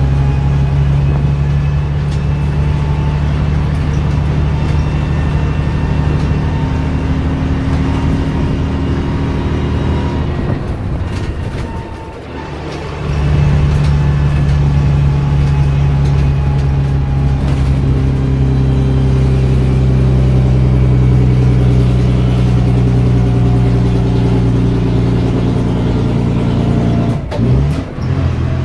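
Loud Leyland O.680 six-cylinder diesel of a Bristol RELL6L single-deck bus running under load, heard from inside the saloon. The engine note eases off about ten seconds in and pulls again steadily from about thirteen seconds, with a short dip and rise in pitch near the end.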